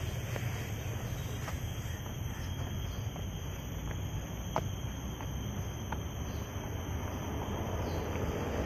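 Footsteps climbing concrete stairs, a handful of short soft steps about a second apart, over a steady low rumble and a thin, steady high-pitched whine.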